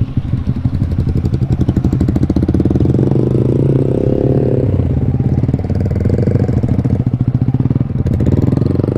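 Single-cylinder motorcycle engine with an Akrapovic aftermarket exhaust, running at low, fairly steady revs that rise and fall a little as the bike is ridden.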